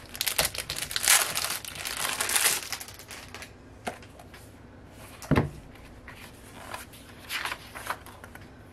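Packaging crinkling and rustling for about the first three seconds as a planner is unwrapped and handled, then a single knock about five seconds in and a few lighter rustles near the end.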